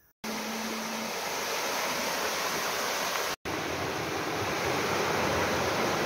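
Loud, steady rush of stream water over rocks, starting suddenly just after the start and breaking off for an instant near the middle.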